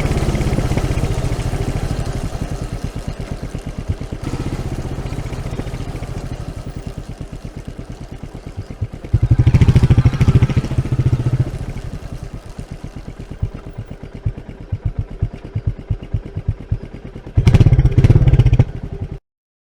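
Single-cylinder Royal Enfield motorcycle exhaust at idle, its individual firing pulses plainly heard, blipped up twice: once about halfway through and again near the end. The sound cuts off suddenly just before the end.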